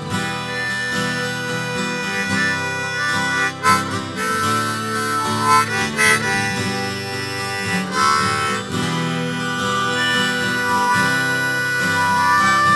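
Harmonica solo over a strummed acoustic guitar, an instrumental break between sung verses.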